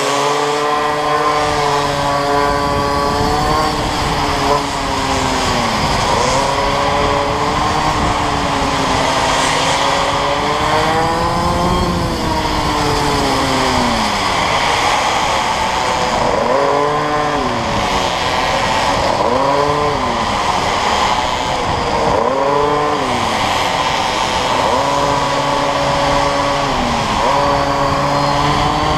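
Go-kart's small engine heard onboard while lapping. The engine pitch climbs and then drops sharply about half a dozen times as it speeds up along the straights and slows for the corners.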